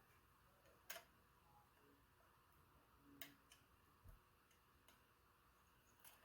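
Near silence broken by a few faint, sharp clicks: the loudest about a second in and another about three seconds in, with smaller ones after. These are small plastic-and-metal clicks of an ISA slot connector being handled and pushed against a circuit board's holes, where its bent pins will not go in.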